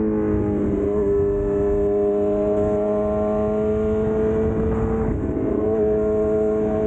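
Yamaha R6's inline-four engine running at high revs under load, its pitch climbing slowly, with a brief dip in pitch about five seconds in, as at a gear change.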